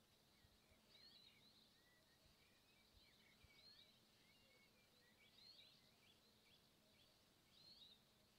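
Faint chirps and short calls of small birds, repeating every second or so, over a faint steady low hum.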